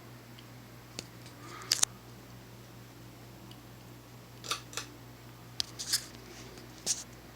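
Small 36-inch ceiling fan's motor running with a steady low hum, overlaid by a handful of irregular sharp clicks and snips.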